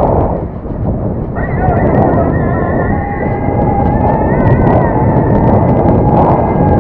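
Wind rushing over the microphone of a moving bicycle, with a high, wavering, multi-toned squeal of brakes setting in about a second and a half in and holding on.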